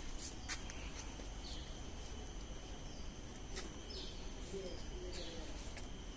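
Garden ambience: a few short bird chirps over a steady outdoor background with a faint high insect drone, and several light clicks.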